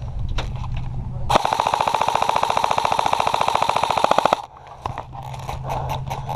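Airsoft gun firing one continuous full-auto burst of about three seconds, with a rapid, even rate of fire. Scattered single shots or clicks come before and after the burst.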